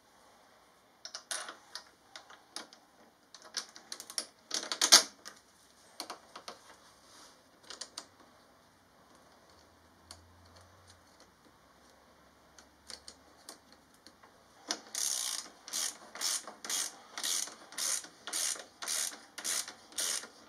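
Ratchet spanner clicking as it tightens the bolt holding the exhaust end can to its hanger bracket. There are scattered clicks and knocks at first, then from about fifteen seconds in a steady run of ratchet clicks, two or three a second.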